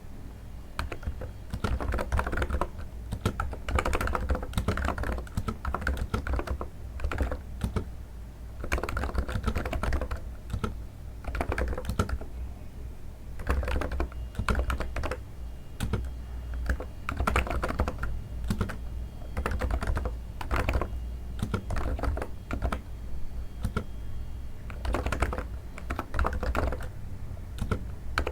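Steady typing on a NiZ electro-capacitive keyboard: a fast run of soft keystrokes with short pauses here and there, a sound likened to stepping on snow.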